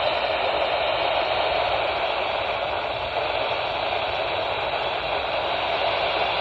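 Steady radio static: a receiver hissing with no clear signal coming through.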